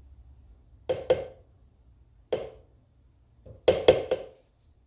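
Spatula knocking against a plastic blender jar and its blade while scraping off thick batter: a pair of sharp knocks about a second in, another a little past the middle, and a quick run of three near the end.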